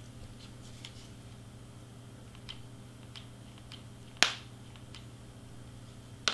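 Small clicks and taps of cardstock pieces and a hot glue gun being handled, with one sharp click about four seconds in and another near the end.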